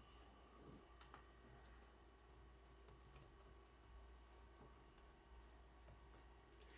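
Faint computer keyboard typing: scattered key clicks, with a quick run of them about three seconds in.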